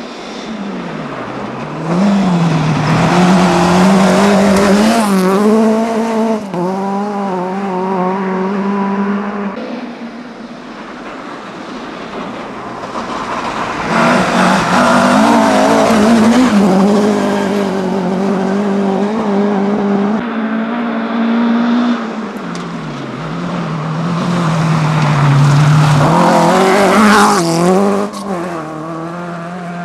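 Rally cars driving flat out on a snowy stage, one after another, engines revving hard with gear changes. Three loud passes, each swelling up and then falling away.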